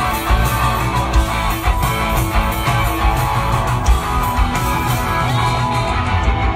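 Live rock band playing an instrumental passage through a loud festival PA: strummed electric guitars over bass and a steady drum beat, without vocals.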